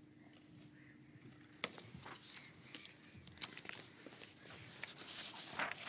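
Faint footsteps of a man walking up to a lectern, then scattered light clicks and rustles of papers being handled.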